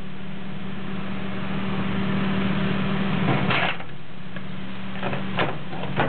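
A steady electrical hum over a rushing hiss, with a clatter about three and a half seconds in and sharp knocks near the end as the charred box fan motor is pulled out of the microwave and set down.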